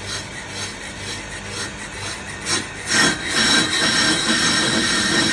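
Brake lathe cutting tool skimming a warped brake disc, scraping in a repeating pulse as it catches only the high spots of the out-of-true disc. About three seconds in the cut turns louder and steadier, with a high metallic ring.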